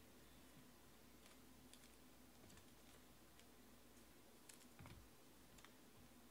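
Near silence: room tone with faint scattered clicks and a soft knock about five seconds in.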